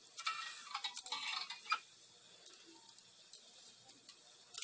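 Hands handling crochet yarn and thin aluminium craft wire: light rustling with a few small, sharp clicks, most of them in the first second and a half.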